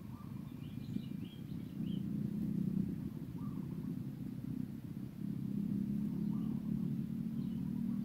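A steady low rumble, with a few faint, short high bird chirps over it.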